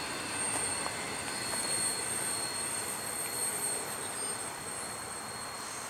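Intermodal freight train cars rolling past: a steady rumble and rattle of steel wheels on the rails, with a thin, steady high whine over it.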